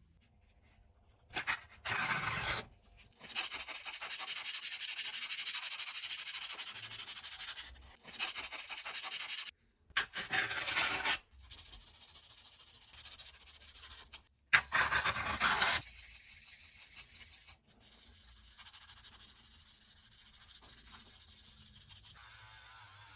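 Abrasive rubbing in a watch restoration, done in several passes broken by short gaps. The loudest pass comes about three to eight seconds in, and a quieter, steadier pass follows near the end.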